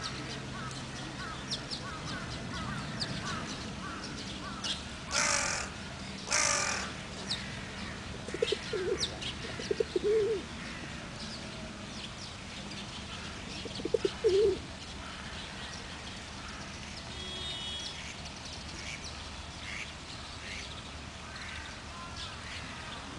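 Carrion crow giving two harsh caws about five and six and a half seconds in. Around it, small birds chirp and pigeons coo in short low phrases a few times.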